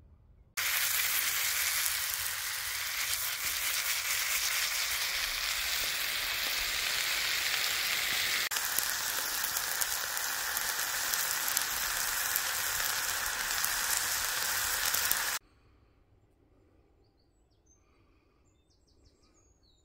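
Chicken and noodles sizzling in a frying pan on a Trangia camping stove: a steady frying sizzle that starts about half a second in and cuts off suddenly about fifteen seconds in. Faint bird chirps follow near the end.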